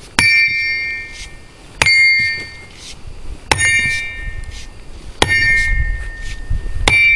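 Sledgehammer striking a small forged steel mortar barrel five times, about a second and a half apart; each blow is a sharp metallic clang that rings on briefly. The owner takes the ring as a sign that the barrel is forged steel, not cast iron.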